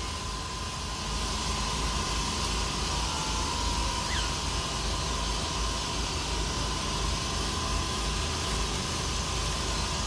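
Steady rushing hiss, with one brief, faint, falling cockatiel chirp about four seconds in.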